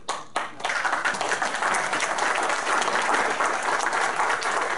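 Audience applauding: a few separate claps, then dense, steady clapping from about half a second in.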